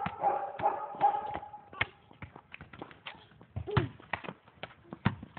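A young child's high-pitched vocal squeals and babble, with frequent light clicks and taps throughout.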